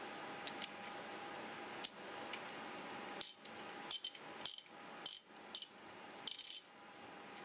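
Ratchet wrench clicking in about six short bursts of rapid clicks as the handle is swung back and forth with an extension and impact socket fitted. A few light metal clicks come in the first two seconds.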